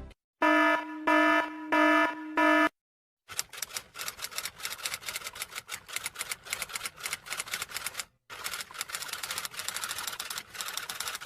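Four short electronic beeps at one steady pitch, then, after a short pause, a long run of rapid clacking keystrokes like fast typing, broken once by a brief pause about eight seconds in.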